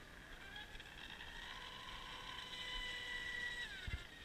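High-pitched whine of an electric RC F1 tunnel-hull boat's TP 4060 1600kv brushless motor running flat out on 6S, growing louder and then dropping in pitch near the end, muffled through a waterproof camera housing. A few dull thumps right at the end.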